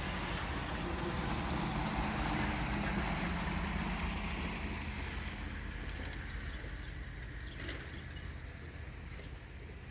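A passing vehicle: broad rushing noise with a low engine hum, swelling and then fading away over the second half.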